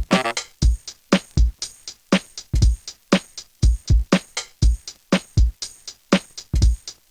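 Background music with a steady electronic drum beat: a kick and a snare alternating at about two hits a second.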